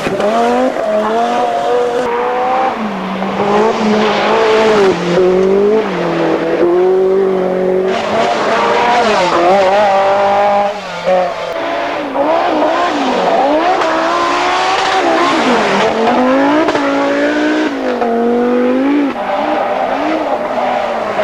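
1980s Group B rally car engines running flat out, pitch climbing and dropping again and again as they accelerate, lift and shift gear.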